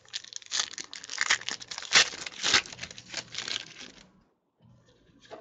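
Foil wrapper of a trading-card pack being torn open and crinkled, crackling irregularly for about four seconds and then stopping.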